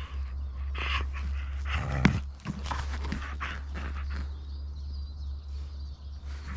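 Caucasian Shepherd puppy mouthing and biting at a worn ball held in a hand: scuffing, crackling noises of teeth and muzzle on the ball, busiest in the first few seconds, over a low steady rumble.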